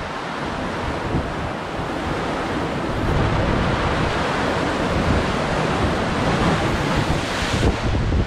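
Ocean surf breaking and washing over a sandstone rock shelf, a steady rushing, with wind buffeting the microphone. It grows a little louder about three seconds in.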